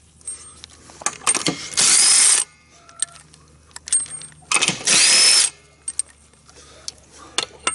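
Cordless drill with a socket spinning lug nuts off a golf cart wheel: two short runs of the drill, about two and five seconds in, each under a second. Sharp clicks and clinks of the socket and freed nuts come between.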